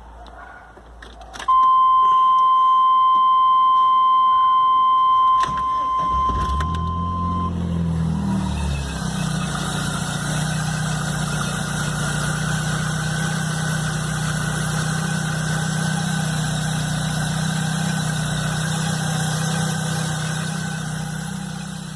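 A steady high beep from the Chevrolet S10 Blazer sounds for about four seconds. The engine then cranks, catches and settles into a steady idle. This is the engine with the strange noise that began the day after its timing belt and alternator belt were replaced.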